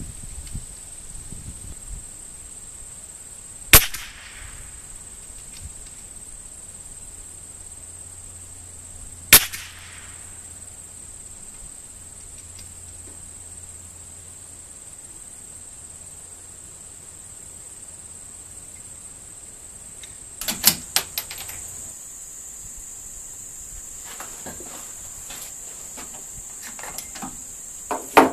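.22 rimfire rifle firing two single shots about five seconds apart, over a steady high drone of insects. About twenty seconds in comes a quick run of sharp clicks and knocks.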